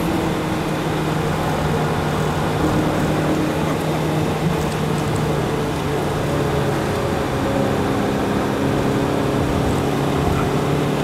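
Engine and road noise inside a Renault Clio's cabin at speed on a race track. The engine drones at a nearly steady pitch over an even rush of tyre and wind noise.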